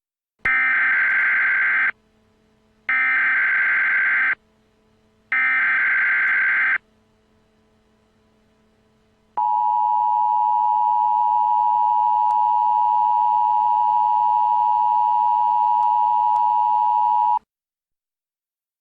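Emergency Alert System tones: three short screeching bursts of SAME header data, each about a second and a half long, then after a pause the steady two-tone EAS attention signal, held for about eight seconds before it cuts off.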